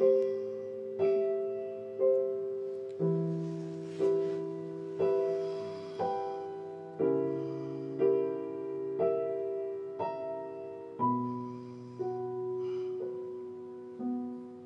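Slow, soft piano music: a chord or note struck about once a second, each one dying away before the next.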